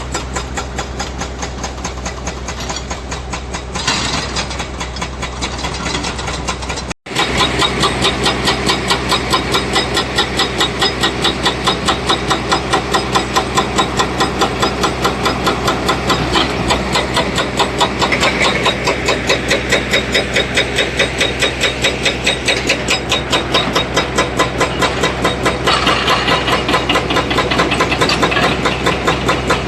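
Heavy diesel engine running steadily with a rhythmic knocking beat, a few beats a second. The sound cuts out for an instant about seven seconds in and comes back louder.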